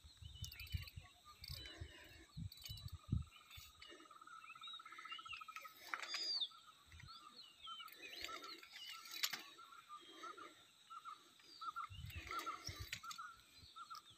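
Faint outdoor bird calls: scattered short chirps and a run of repeated short notes, about two a second, through the second half. Low thumps in the first few seconds.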